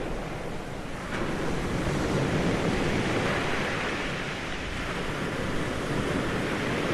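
Ocean surf: waves breaking and washing up the shore in a continuous rushing hiss. It dips slightly in the first second, then swells again.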